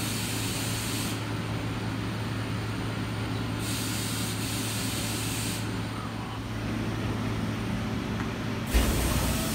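Steady urban background noise with a constant low hum, and stretches of high hissing lasting a second or two that come and go. A short thump near the end.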